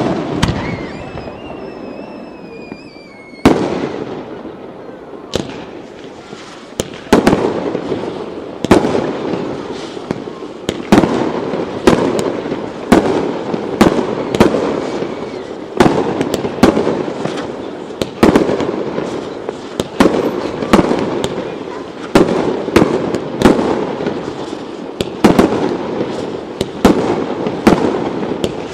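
Aerial fireworks display: a shell bursts with a loud bang, followed by a few thin gliding whistles. About three seconds in, a steady run of sharp bangs begins, roughly one or two a second, with crackling between them.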